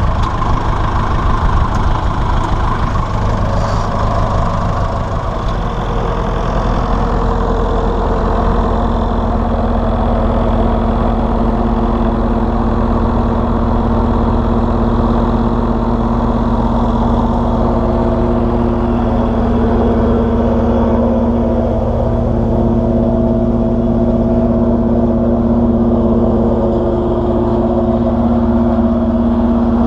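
Massey Ferguson 168 tractor's four-cylinder diesel engine running steadily at a constant speed, with a few knocks in the first seconds and a steady tone joining about eight seconds in.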